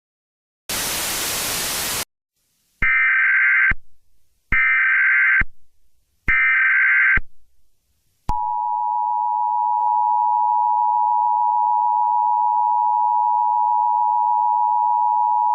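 Emergency Alert System alert sequence. A short burst of static comes first, then three warbling bursts of SAME header data tones, evenly spaced. About eight seconds in, the EAS attention signal starts: a loud, steady two-tone beep that holds to the end.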